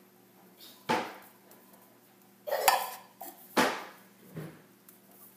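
Four short clinks and knocks of kitchenware against the slow cooker's stoneware crock as a can of cream of chicken soup is emptied over the chicken. One knock, a little past the middle, rings briefly.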